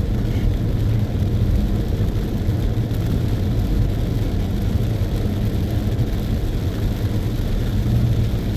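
Steady road noise inside a moving car's cabin: a low engine hum with tyre noise from a wet road.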